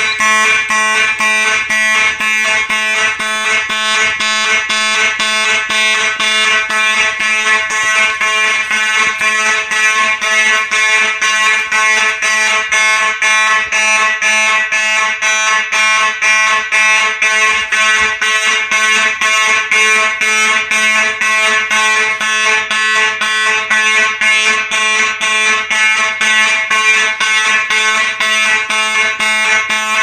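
ESL-rebranded Faraday 6120 electromechanical fire alarm horn sounding in march time, a buzzing horn tone pulsing on and off about twice a second. This is the fire alarm panel's coded alarm signal after a smoke detector was set off.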